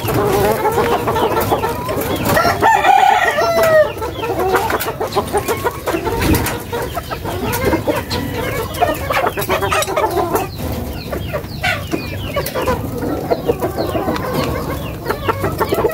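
Chickens clucking in a pen, with a rooster crowing once about three seconds in, the loudest call. Scattered sharp clicks run under the calls.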